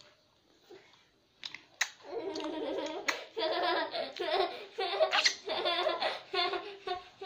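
A young girl laughing in repeated bursts, starting about two seconds in after a quiet moment with a couple of sharp clicks.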